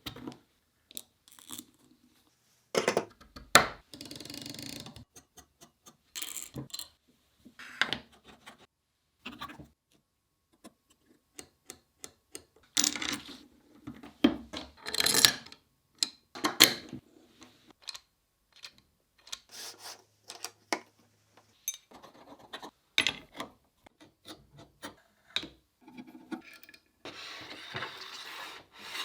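Parts of a miter fence being fitted together by hand: a series of separate clicks, taps and short scrapes, with a longer scraping rub near the end.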